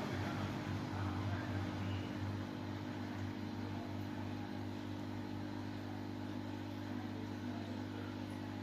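Steady low electrical hum, even and unchanging, with no distinct sound from the soldering itself.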